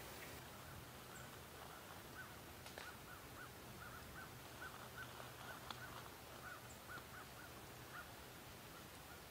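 Faint, distant bird calls: a run of short, repeated calls, a few a second, over a faint steady low hum.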